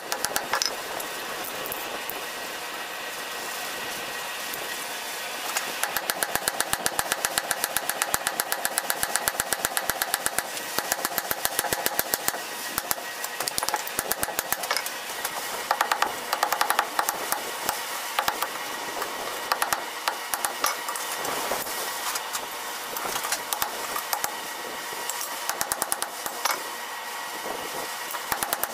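Hand hammer striking red-hot steel on an anvil in quick runs of sharp blows, with pauses between the runs. A steady mechanical hum carries on underneath.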